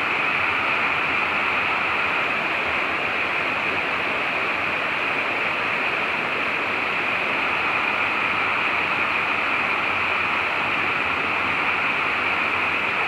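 Steady rush of water pouring down a smooth, sloping rock-slide waterfall into its plunge pool, an even hiss with no breaks.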